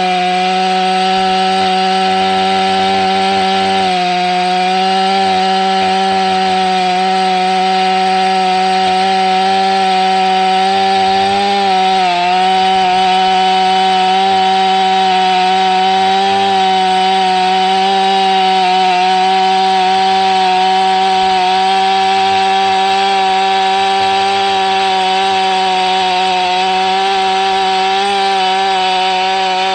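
Stihl MS500i 79 cc fuel-injected two-stroke chainsaw held at full throttle while its 28-inch bar and chain cut through seasoned ash. The engine note holds steady, with brief dips in pitch about 4 and 12 seconds in as the chain takes load.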